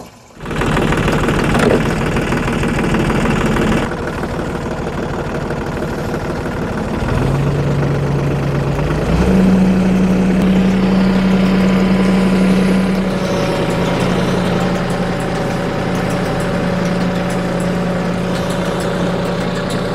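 New Holland compact tractor's diesel engine running, throttled up in two steps about seven and nine seconds in, then holding a steady higher engine speed.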